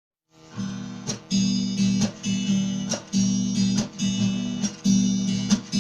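Guitar strumming chords in a steady rhythm, about two strokes a second, starting about a third of a second in after silence: the instrumental intro of a song.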